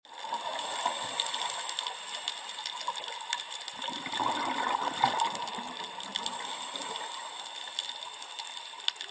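Edited-in sound effect on the end screen: a steady, rushing, hissy noise full of small crackles, like running or gushing water. It starts abruptly out of silence and swells a little in the middle.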